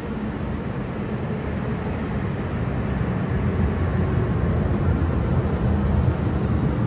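MTR M-train electric multiple unit entering the underground platform behind the platform screen doors: a steady rumble of wheels and motors that slowly grows louder as it comes in.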